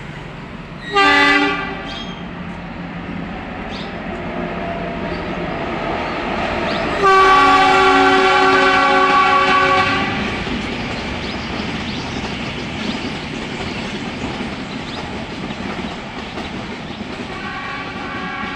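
Kangra Valley narrow-gauge toy train sounding its loud horn: a short blast about a second in, a long blast of about three seconds midway, and another starting near the end. Between the blasts, the steady rumble and wheel clatter of the train running.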